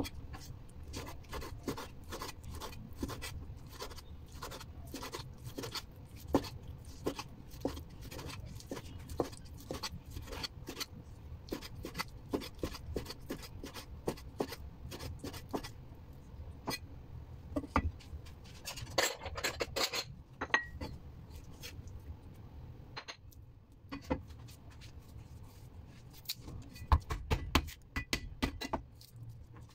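Cleaver chopping raw chicken breast on a bamboo cutting board: quick knocks of the blade on the wood, several a second. About two-thirds of the way through there is a longer scraping sound.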